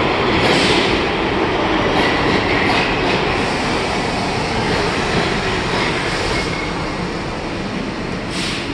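New York City Subway Bombardier R62A train pulling into the station and slowing to a stop, its running noise easing gradually, with a short hiss near the end.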